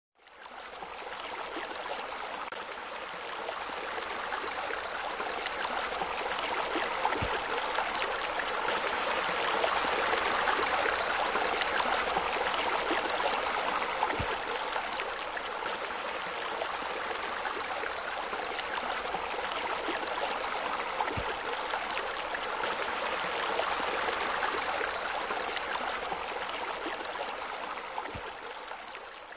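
Steady running water splashing, fading in at the start and out at the end, with a faint low click about every seven seconds.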